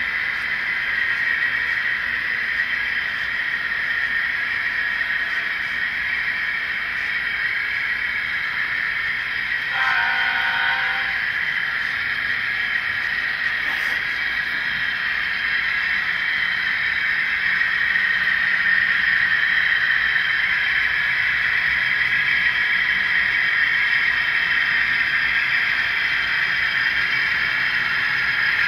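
Model trains running on a home layout's track: a steady rolling whir that grows a little louder past the middle. About ten seconds in, a short horn-like blast of about a second sounds.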